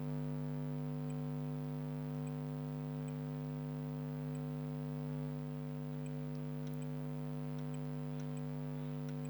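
Steady electrical hum, several even tones held without change, with a few faint high ticks.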